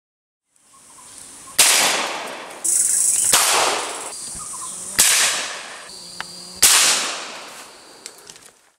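Four gunshots from a hunting long gun, about a second and a half apart. Each is a sharp crack that rings on and dies away over about a second in the forest.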